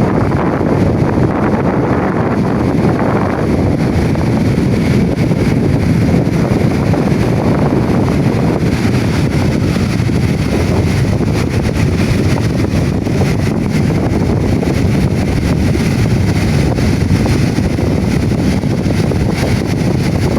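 Strong sea wind buffeting the microphone over waves washing onto a sandy beach: a loud, steady low rumble with no breaks.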